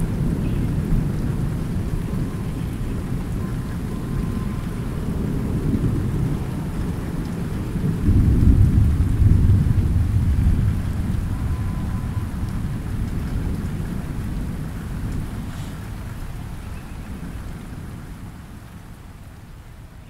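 A long roll of thunder over steady light rain. The rumble swells to its loudest about eight seconds in, then slowly dies away, leaving the rain fainter near the end.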